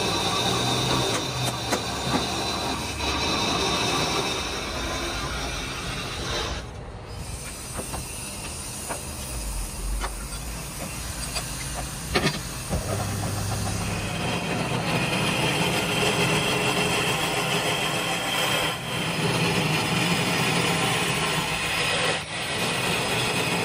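Belt-driven lathe running while a cutting tool scrapes and grinds against a spinning black stone mortar blank: a steady grinding noise with scattered clicks, quieter for a while in the first half and louder and fuller from a little past the middle.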